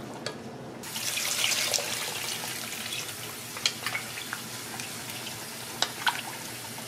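Water pouring into a pot of shrimp shells and fish bones for stock. It starts suddenly a little under a second in and runs on steadily, with a few light clicks as a wooden spatula stirs the shells.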